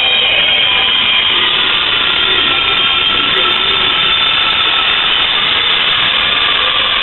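Train rolling slowly through a station, its wheels squealing in several high steady tones over a continuous rumble.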